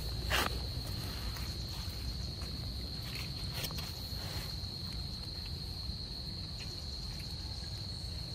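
A steady, high-pitched insect drone, such as crickets, with a few short scuffs and rustles from baby monkeys handling a mango on bare ground, the clearest one about half a second in.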